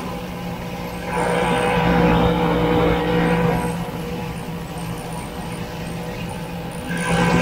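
1967 Ski-Doo Olympique's single-cylinder two-stroke engine running as the snowmobile travels along the trail. It gets louder for a couple of seconds about a second in, and again near the end.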